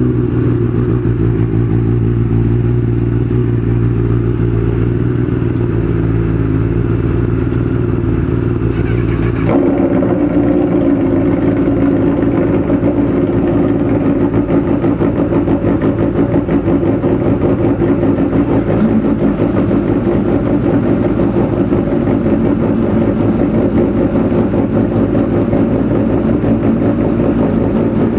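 Kawasaki sportbike's inline-four engine running at a steady idle through an aftermarket racing exhaust. About nine seconds in, the sound changes to a choppier, pulsing idle.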